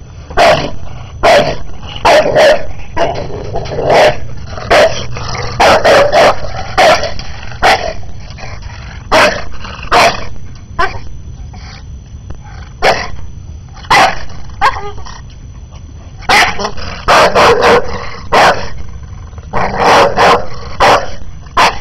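A dog barking repeatedly: short, sharp barks in irregular runs of several at a time with brief pauses between.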